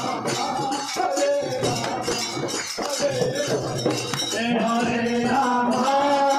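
Devotional group chanting with jingling hand clappers and clapping keeping a steady beat. From about four seconds in a held, sung chant line comes through more strongly and a little louder.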